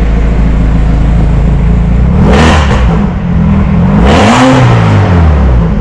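Volkswagen Polo 1.6 petrol engine idling through a Remus full-system valved exhaust, blipped twice, about two seconds in and again about four seconds in, each rev rising and falling back to idle.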